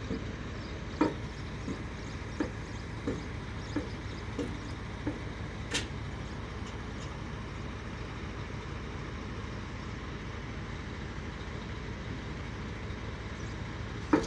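A heavy truck's engine running steadily at idle. During the first six seconds there is a series of short knocks, about one every 0.7 s, which then stop.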